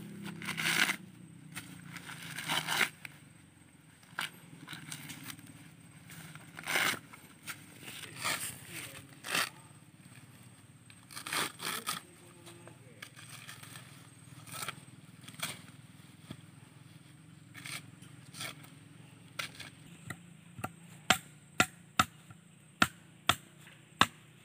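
Irregular scraping and rustling, then near the end a steady run of sharp chopping knocks, about three every two seconds.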